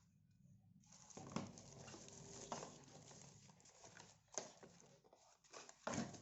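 Faint handling noises: rustling with a few light knocks and taps, the loudest near the end.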